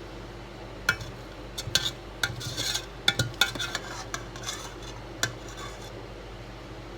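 Metal utensil clinking and scraping against cookware in a quick run of clicks and scrapes, starting about a second in and stopping about five seconds in, over a steady background hum.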